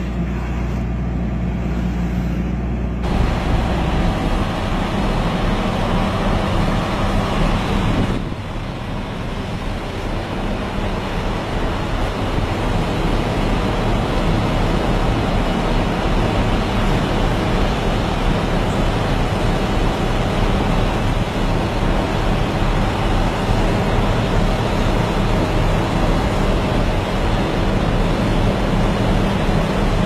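Heavy machinery engines running steadily under a dense mechanical din, with abrupt changes in the sound about three and eight seconds in.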